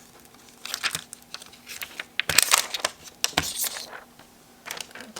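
Plastic protective film being peeled off a freshly applied phone screen protector, crinkling and crackling in several bursts, the longest and loudest about halfway through.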